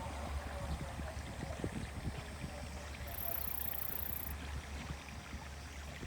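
Low, steady rumble of a trolley train, with scattered small clicks and knocks. A high hiss comes in for a little over a second around the middle.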